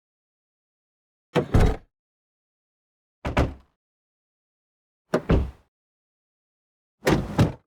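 Car door being shut, heard from inside the cabin: four separate slams about two seconds apart, each a quick double knock that dies away within half a second.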